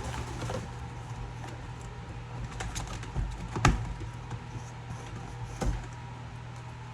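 A cardboard pigeon shipping box being worked open by hand: scattered clicks, scrapes and knocks, with two sharper knocks about three and a half and five and a half seconds in, over a steady low hum.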